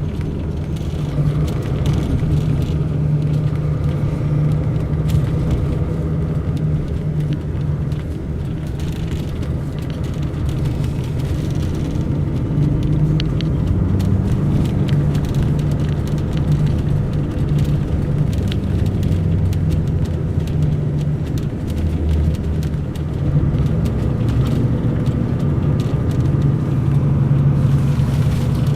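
Mercedes-Benz O500 RSD BlueTec5 coach's diesel engine running under way, its pitch shifting a few times as the bus changes speed, with many small clicks and rattles throughout.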